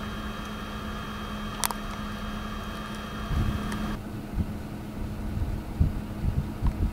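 Steady mechanical hum with a higher whine that stops about four seconds in, a single click just before two seconds, and wind buffeting the microphone in gusts from about three seconds on.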